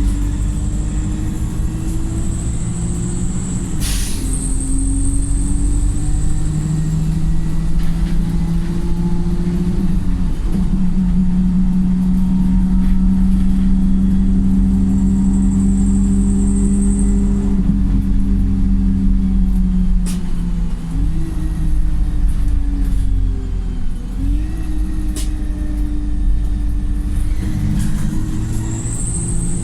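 Wright StreetLite single-deck bus engine heard from on board, pulling loudly. Its note climbs through the gears with sudden drops at each shift, holds high for several seconds, then steps down as the bus slows and starts to climb again near the end. A few sharp clicks sound over it.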